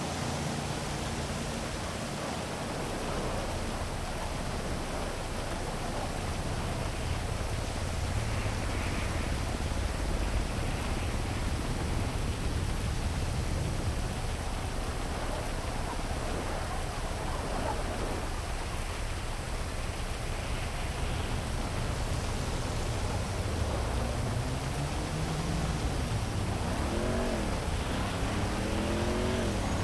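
Heavy rain falling steadily over a city, with the low rumble of traffic beneath it. Near the end a vehicle's engine revs, its pitch rising and falling.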